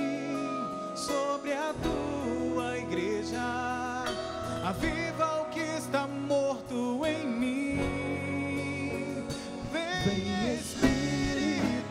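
A singer performing a Catholic worship song with instrumental accompaniment, holding long notes with vibrato.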